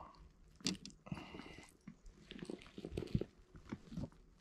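Irregular close knocks, clicks and rustling from handling a freshly landed trout and the lure hooked in it, with a brief squeak about a second in.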